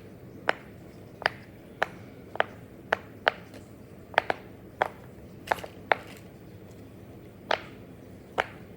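Pop-it fidget toy's bubbles being pressed one after another, giving about a dozen short, sharp pops at an uneven pace with a short pause near the end.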